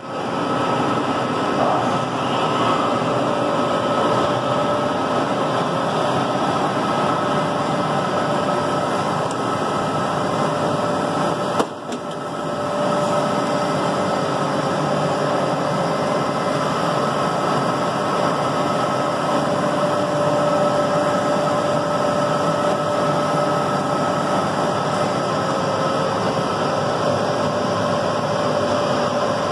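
Mandelli CNC milling machine running: a steady machine noise with a steady whine. A sharp click and a brief drop in level come about twelve seconds in.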